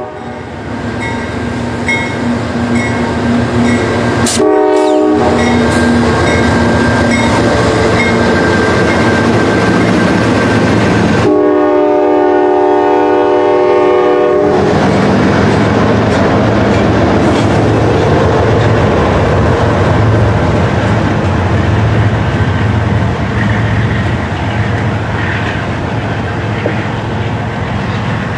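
Two CSX diesel freight locomotives passing slowly close by, engines running, with the air horn giving a short blast about four seconds in and a long blast of about three seconds near the middle. A crossing bell rings about twice a second in the first part. After the horn the double-stack intermodal cars roll past with a steady rumble and clacking of wheels.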